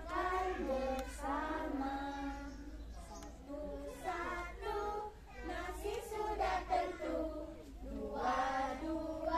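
A group of young children singing a song together in unison, in short phrases.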